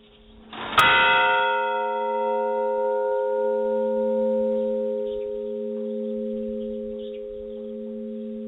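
A large church bell struck once, about a second in. Its higher overtones die away over a few seconds while the deep hum tone rings on with a slow throb.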